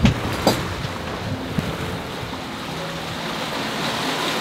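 Sea and wind noise aboard a sailboat under way, with wind on the microphone. Two sharp knocks come in the first half-second.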